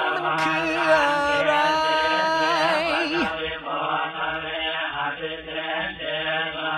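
Song built on Buddhist Pali chanting. A held, wavering sung line gives way about three seconds in to rhythmic chanting, and the sound turns duller as the high end drops away.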